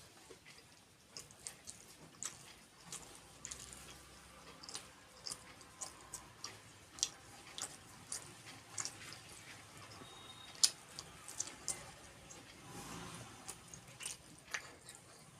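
Wet mouth sounds of someone eating kheer and puri: chewing and lip-smacking as a run of short, irregular clicks and smacks, with one sharper click a little past the middle.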